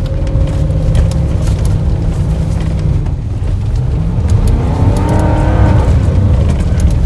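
Toyota Tundra pickup's engine running under throttle, heard from inside the cab as a heavy low rumble with clicks and rattles over rough ground. About four seconds in, the engine revs up and then falls back.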